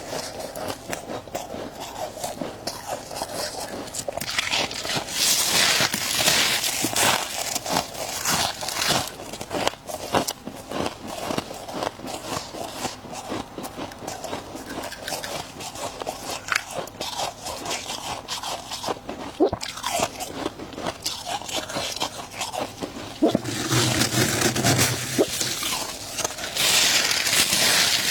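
Frost and ice being bitten and chewed close to the microphone: a dense, continuous run of crisp crackling crunches that grows louder in two stretches, about a fifth of the way in and again near the end.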